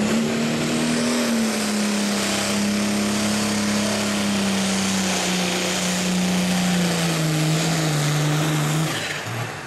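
Light limited super stock pulling tractor's turbocharged diesel engine running flat out under load as it drags the sled. Its pitch sinks slowly as the pull goes on, and the engine sound drops away about nine seconds in.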